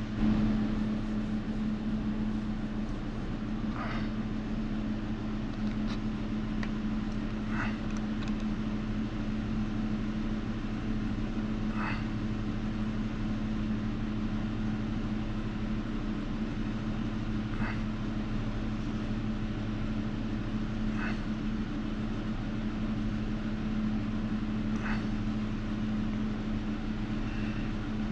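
A steady low machine hum, like a fan or small motor running, with a few faint light clicks and taps scattered through it from tools and fingers working clay.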